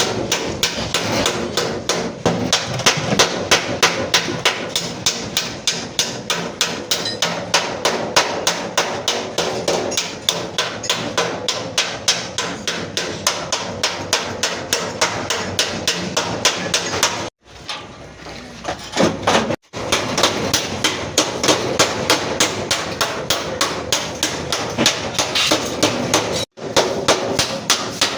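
Hammer beating out the accident-damaged front sheet metal of a Suzuki Ravi pickup: rapid, even blows, several a second, breaking off briefly twice.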